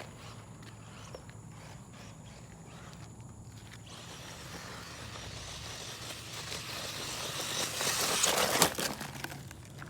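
Crunching and scraping on loose rough ground, growing louder over several seconds to a peak with a few sharp knocks about eight seconds in, then dropping back.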